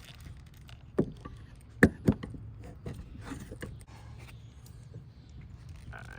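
Three sharp knocks close to the microphone, about a second in and twice around two seconds in, among lighter clicks and scraping. This is handling noise from a poor camera holder being adjusted.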